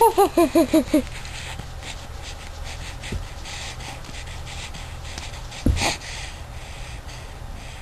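Baby sneezing once, a short sharp burst about six seconds in. It opens with a quick run of six short, high-pitched voice sounds, each falling in pitch.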